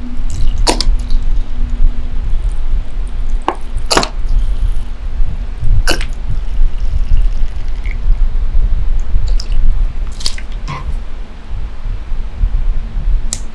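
Red coolant squeezed from a plastic bottle through a brass nozzle into the small plastic coolant tank of a water-cooled model engine, with a steady low rumble and about seven sharp drip sounds spread through it.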